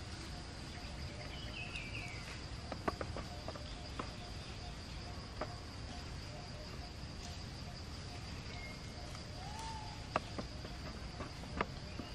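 Steady high-pitched drone of insects, with a few sharp clicks and a couple of short chirps, one near the start and one about ten seconds in.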